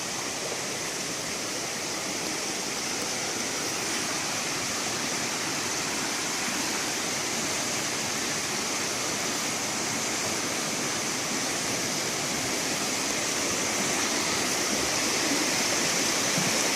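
Steady rushing of a creek waterfall, growing gradually louder.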